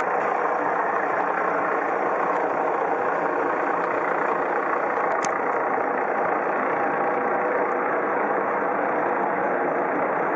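Eurocopter EC155 B helicopter flying overhead: a steady, even drone of rotor and engine noise.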